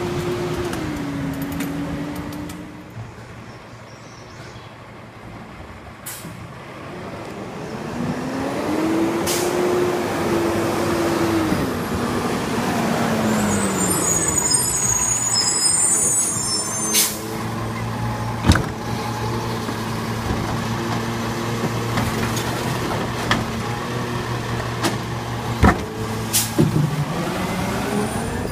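Labrie Expert side-loading garbage truck's diesel engine dropping in pitch, revving up and down, then running steadily, with a hiss of air brakes in the middle. Several sharp clanks come in the second half.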